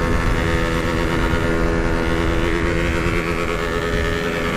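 Yamaha RX-King's 135cc two-stroke single-cylinder engine and exhaust running at steady revs while the motorcycle is ridden.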